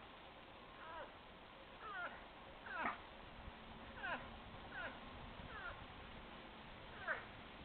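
Young moose calling: seven short bleats, each sliding down in pitch, about one a second, the loudest about three seconds in and again near the end.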